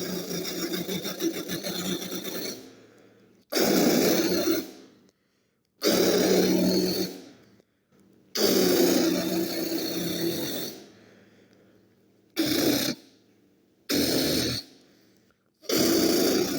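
Jackhammer drilling sound for a toy play scene, in about seven rattling bursts with pauses between; the later bursts are shorter.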